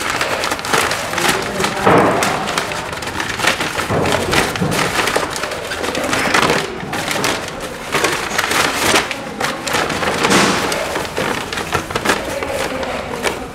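A large crumpled sheet of paper pulled open and unfolded by hand, crinkling and rustling loudly without a break.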